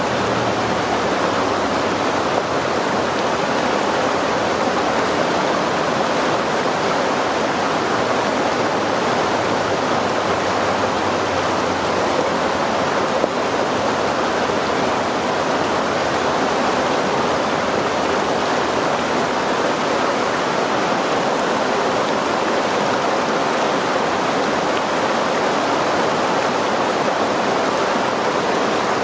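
River stream flowing steadily, a continuous rushing of water.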